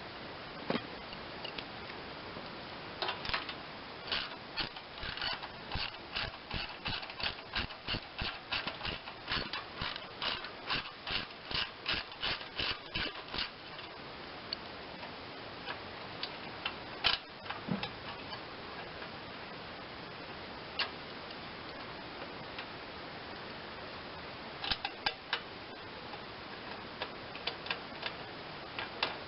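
Ratchet wrench clicking as a bolt is worked loose: a fast, even run of clicks, then a few scattered clicks and another short run near the end.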